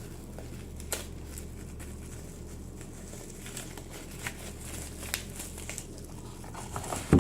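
Packaging and items being handled: light crinkling and rustling with small clicks, and a thump near the end as something is set down.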